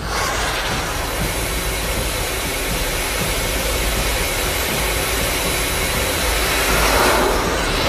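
Jet-like roar of a sea-skimming missile in flight, a steady rushing noise that swells near the end.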